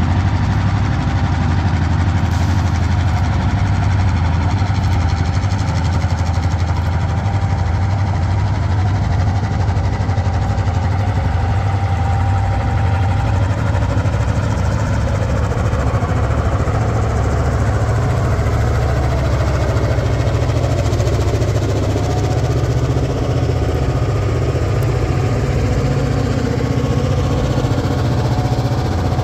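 Two EMD SD38-2 diesel-electric locomotives, each with a non-turbocharged 16-cylinder EMD 645 two-stroke engine, working hard as they notch up the throttle to pull a train up a grade. A deep, steady engine rumble that climbs a step in pitch partway through.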